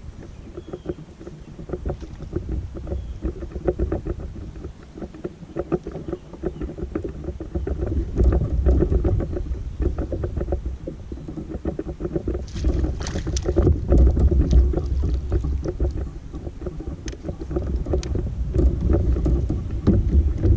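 Small fishing boat under way on the lake: a steady low rumble with rapid knocks of the hull on the water, growing louder about eight seconds in.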